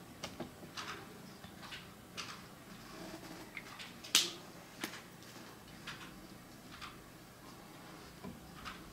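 Brush pen strokes on paper: faint, short scratchy strokes every half second or so, with a sharper tap about four seconds in.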